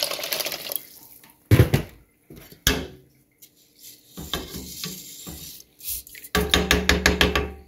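Water poured from a pitcher into a pot of rice stops within the first second. Then a wire-mesh spider strainer stirs the rice, knocking and scraping against the pot, with a quick run of clinks near the end.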